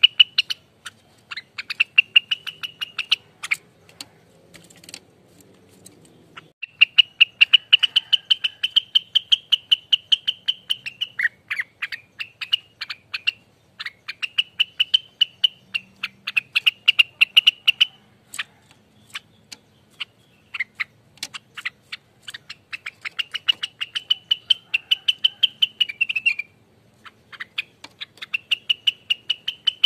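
Cucak rengganis songbird singing its rapid 'ropelan' trilling song: repeated phrases a few seconds long, each a fast run of sharp notes over a held high whistle, with short pauses between phrases.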